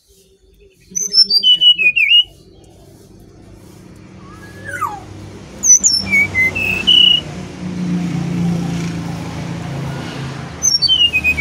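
Brown-chested jungle flycatcher singing: three short phrases of clear whistled notes that step down in pitch, about a second in, around six seconds in, and again near the end. A low steady hum runs underneath, swelling in the middle.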